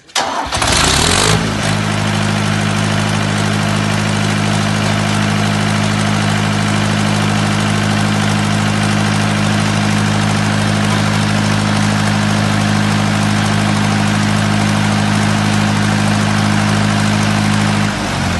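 Diesel generator set started by its electric starter: a brief crank that catches within about a second, then the diesel engine runs at a steady speed with a loud, even low hum. Near the end it is shut off and the hum slides down and dies away.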